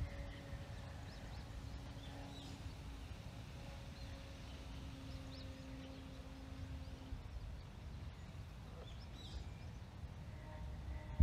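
Faint, distant steady hum of the Flash RS's electric motor and propeller high overhead, fading out about seven seconds in. A few faint bird chirps and a low wind rumble underneath.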